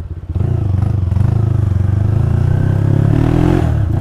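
Motorcycle with a cheap aftermarket silencer exhaust pulling away and accelerating, its bassy exhaust note rising in revs. The revs drop briefly near the end, as at a gear change.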